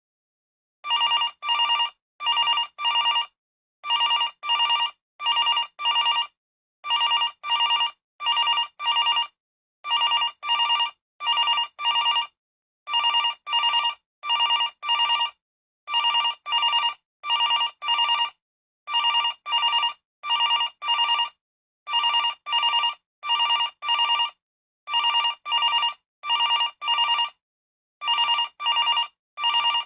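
Old landline telephone ringing: short rings in tight groups of two or three, with brief pauses between groups, repeating evenly.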